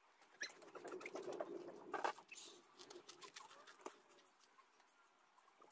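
Faint clicks and taps with a soft flapping as a small portable charcoal barbecue is fanned with a flat board and the food on it is turned with metal tongs; the busiest stretch is about one to two seconds in, with one sharper click near two seconds.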